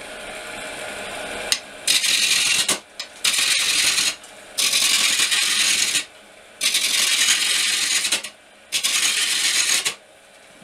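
A turning chisel cutting a spinning oak blank on a wood lathe while it is roughed down to a cylinder: five passes of loud, rasping chip-cutting noise, each about a second long. The lathe runs more quietly in the short gaps between passes.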